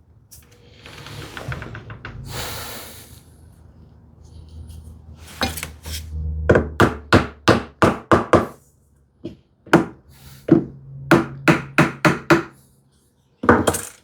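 Wood being struck with a run of sharp knocks, about two a second and growing louder toward the end, after a few seconds of rough rubbing or scraping on wood at the start.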